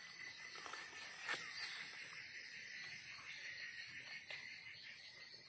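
Steady chorus of forest insects, a high-pitched buzzing and trilling, with a sharp click about a second in and a few fainter clicks and rustles as a wild mushroom is cut from the soil and handled.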